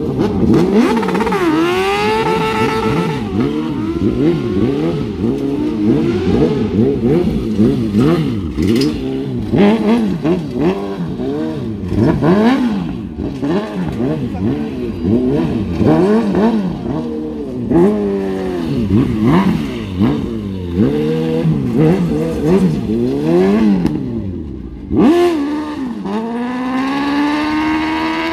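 Long-swingarm racing motorcycle's engine revved hard while drifting, its pitch rising and falling again and again, about once a second. Near the end it climbs into one long, steady high note.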